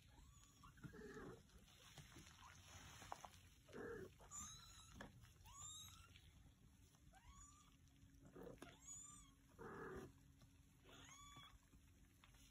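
Kitten mewing: about eight faint, high, short mews, each rising then falling in pitch, spread through the stretch. A few brief soft rustles come in between.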